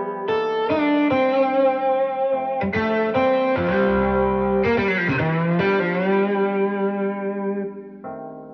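Guitar music with effects, plucked notes ringing out over a low bass line, played back through a Technics SC-C70 MK2 all-in-one hi-fi system and picked up by a microphone in the room. The music drops to a quieter passage near the end.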